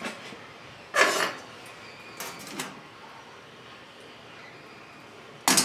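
Clanks and knocks of metal camp cookware being handled on a small wood-burning stick stove: the enamel coffee pot is lifted off and a metal pot-support ring set on the stove. A loud clank about a second in, a couple of lighter knocks around two seconds in, and a sharp clank near the end.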